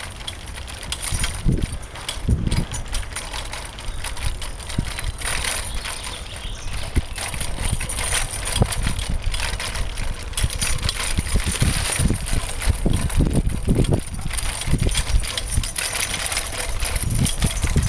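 Bicycle ridden over rough park ground: irregular rattles, clicks and low bumps, with handling noise from a camera held while riding.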